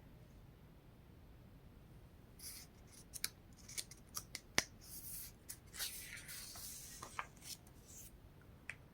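Faint scattered clicks and short scraping, rustling sounds, starting about two and a half seconds in, with one sharper click near the middle.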